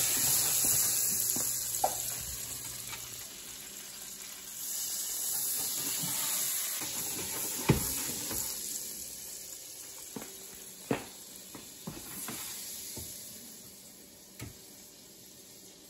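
Olive oil and a pat of unsalted butter sizzling in a stainless steel sauté pan as the pan is swirled; the hiss fades over the last few seconds. A few light knocks, the sharpest about eight seconds in.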